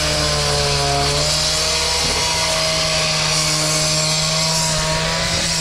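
Gas-powered handheld cut-off saw running steadily, its diamond blade wet-cutting a concrete slab with a constant high hiss over the engine's drone.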